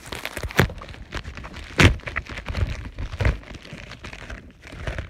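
Protective packaging being pulled and torn open by hand: irregular crinkling and tearing, with a few knocks and thuds, the loudest about two seconds in.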